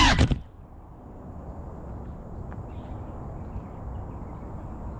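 Low wind rumble on the microphone with a few faint bird chirps. A loud, steady hum with several pitches cuts off abruptly within the first half second.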